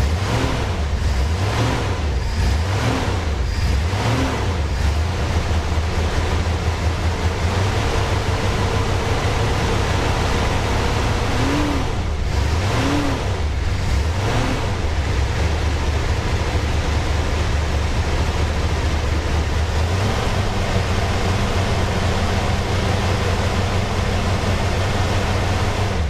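1964 Dodge Custom 880's V8 running with its engine-driven radiator fan making a loud howling/roaring noise, revved up and down a few times. The fan clutch bearings are seized, so the fan is locked to the pulley and spins hard with the engine.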